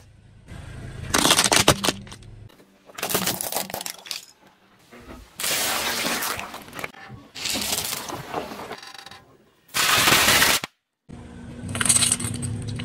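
A car tyre rolling over and crushing objects, in about six separate short bursts of crunching and cracking that each start and stop abruptly. Midway through, the bursts include eggshells cracking and squashing under the tyre.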